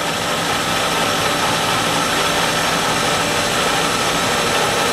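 Milling machine table power feed running steadily, driving the table across, with a faint steady whine over a level mechanical hum.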